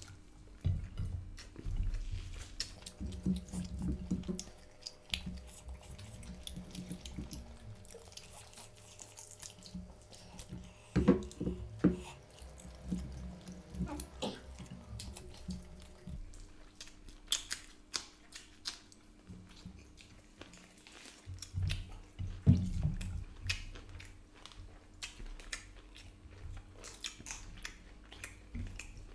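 Close-up eating sounds from two people eating mutton leg curry and rice by hand: chewing, wet squelching of curry-soaked rice and lip smacks. Scattered sharp clicks throughout, with a few louder clusters partway through.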